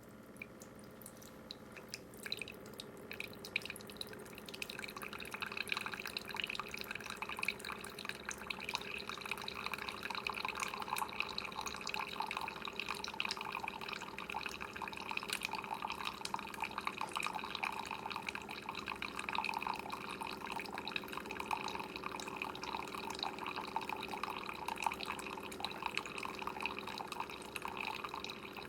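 Keurig K-Express coffee maker brewing: its pump hums steadily while hot coffee spatters and streams into a cup, starting about two seconds in and growing fuller a few seconds later.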